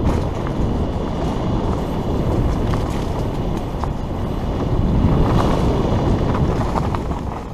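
Wind buffeting the camera microphone and knobby mountain-bike tyres rolling fast over a dirt forest trail, with scattered clicks and rattles from the bike. The rush swells about five seconds in.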